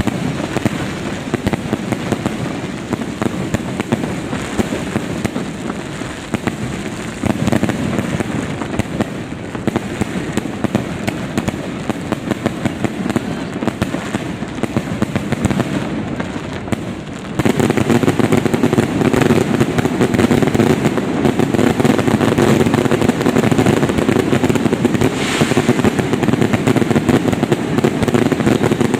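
Fireworks going off in a dense, continuous run of bangs and crackles, which gets louder about two-thirds of the way through.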